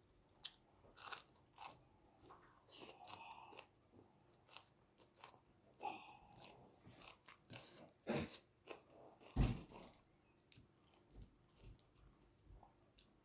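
Close-miked eating: a person chewing and taking crisp, crunchy bites of food, a run of short sharp crunches. About eight and nine and a half seconds in come two louder thumps.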